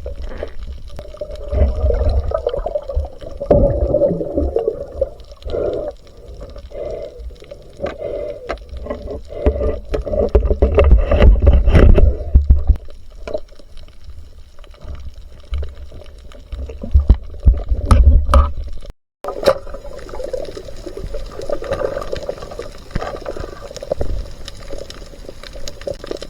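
Water sloshing and gurgling around the microphone, swelling and easing unevenly, with scattered sharp clicks and knocks. The sound drops out completely for a moment about 19 seconds in.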